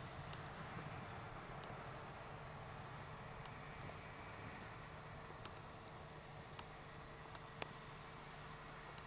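Faint, steady jet roar of a Boeing 737-400's CFM56 engines at takeoff power as the airliner lifts off and climbs away, slowly fading. Under it there is a low hum, a fast faint high ticking, and a few sharp clicks, the loudest one about seven and a half seconds in.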